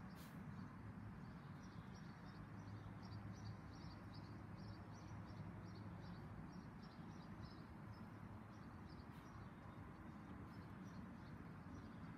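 Small birds chirping in quick repeated high notes over a steady low outdoor background rumble.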